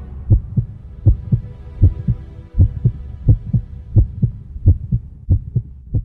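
Heartbeat sound effect: low double thumps, lub-dub, about eighty beats a minute, over a faint held drone that fades out. The last beats are a little weaker.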